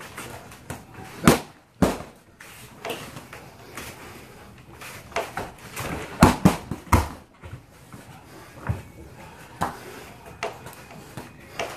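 Boxing-gloved punches and kicks landing on a hanging punching-dummy bag, about ten hits in uneven combinations. The loudest come as a pair about a second and a half in and another pair just past the middle.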